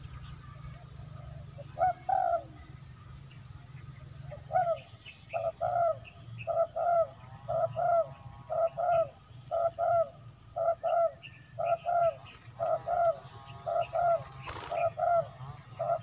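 Dove cooing: two short coos about two seconds in, then from about four seconds on a steady run of short paired coos, roughly one pair a second.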